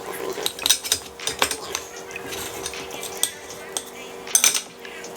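Metal utensils clinking and tapping against dishes while a strip of fish fillet is cut and handled. The clinks come irregularly, with the loudest pair about four and a half seconds in.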